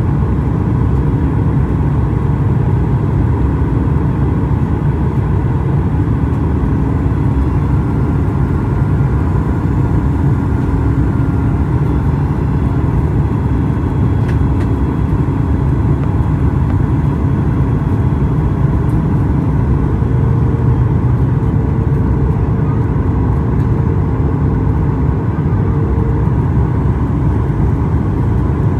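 Cabin noise inside a Boeing 737 MAX 8 on descent: a steady low rumble of airflow and the CFM LEAP-1B engines, with faint humming tones that fade in and out.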